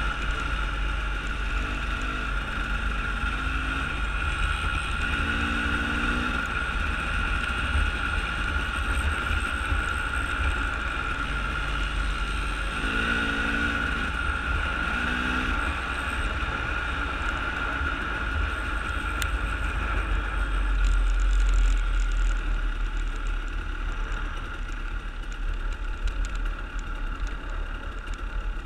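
Vehicle driving along a gravel road: a steady running drone with heavy low rumble, a few short pitched sounds rising above it about 5 and 13 seconds in, and a slight swell about three quarters of the way through.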